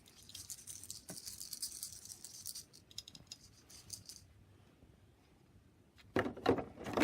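Small wooden toy pieces being handled and put away, clicking and rattling lightly against each other and their packaging for about four seconds. A voice starts near the end.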